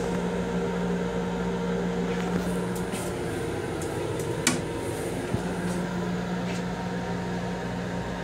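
Steady hum of the M7 railcar's onboard equipment, with a sharp click about four and a half seconds in as the plastic toilet lid is lowered shut and a smaller click just after.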